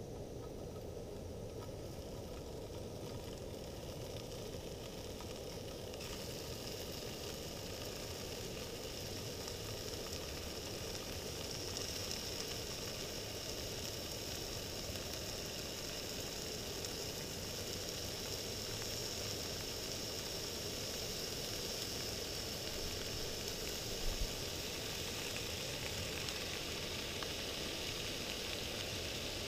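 Bacon sizzling in a frying pan on a camp stove, a steady hiss that grows louder as more strips go into the pan. There is one brief knock about three quarters of the way through.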